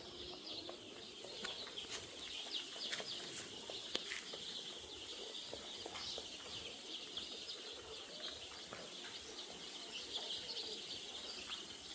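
A flock of young chicks peeping continuously, a dense chorus of many short high cheeps overlapping one another, with scattered light clicks.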